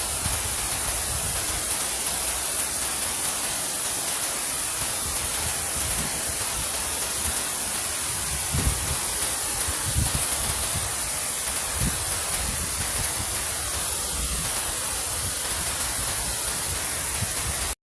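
Steady rushing of flowing river water, with a few low gusts of wind buffeting the microphone.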